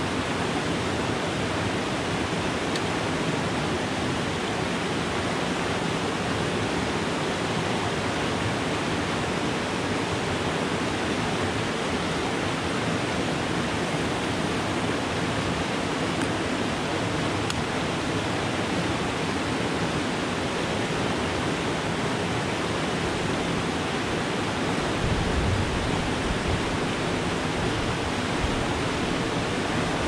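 Rushing water of a waterfall and rapids tumbling over rocks, a steady, even roar; a deeper rumble joins in near the end.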